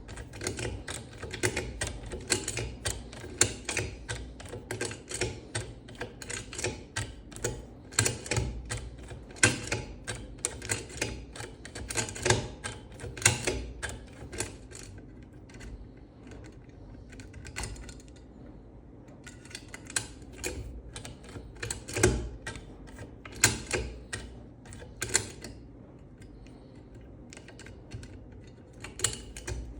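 Picking tool being worked inside a Securemme 3+3 anti-pick lock: rapid, irregular metallic clicks and ticks that thin out for a few seconds around the middle and then pick up again.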